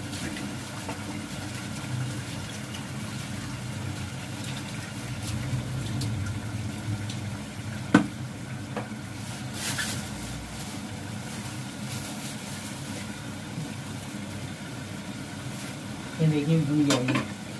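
Low steady noise of curry cooking on a lit gas stove, with a single sharp knock about eight seconds in and a brief voice near the end.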